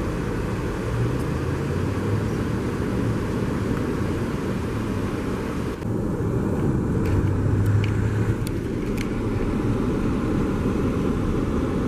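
Road traffic and vehicle engines running, a steady low engine hum under the traffic noise, with a few light clicks in the second half.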